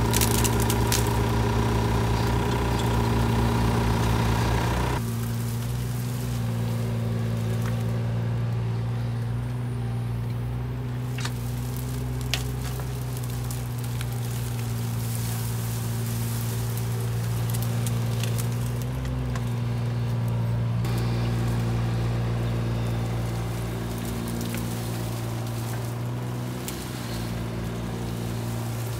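Engine of a heavy work machine running at a steady speed with an even, unchanging drone. About five seconds in, the higher part of the sound drops away suddenly and the drone goes on duller.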